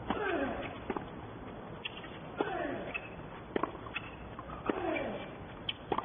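Tennis rally: a ball struck back and forth by racquets, a sharp hit about once a second. A player gives a short falling grunt on every other shot.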